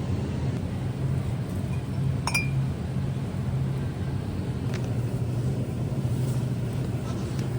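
A single light clink, with a brief ringing tone, about two seconds in over a steady low hum.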